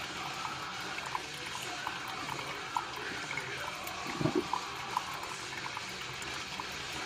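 Drip coffee maker brewing: coffee trickling into the glass carafe with small drips and gurgles, and a louder gurgle about four seconds in.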